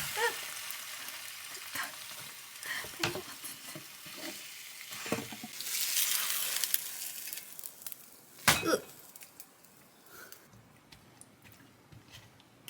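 Jeon frying in oil in a pan, sizzling steadily, with a few sharp clinks of a utensil against the pan; the loudest clink comes about eight and a half seconds in, and the sizzling dies down after that.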